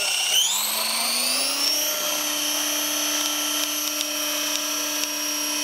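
Align T-Rex 550 radio-controlled helicopter hovering, its motor and drivetrain giving a high-pitched whine over the hum of the spinning rotors. The pitch rises over the first couple of seconds as the rotor speed builds, then holds steady.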